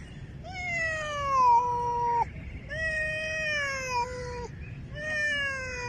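Domestic cat meowing: three long meows, each falling in pitch, the first the loudest.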